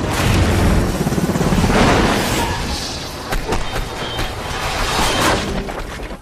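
A plane crash: a sudden loud boom with a heavy rumble, followed by a run of sharp crashing and shattering impacts that fade near the end.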